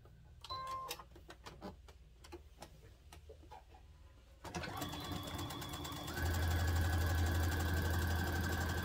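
Electric sewing machine stitching a straight seam through cotton fabric. After a few faint clicks, it starts about halfway through with a rapid needle chatter, then speeds up about a second and a half later into a louder, steady fast run with a low hum.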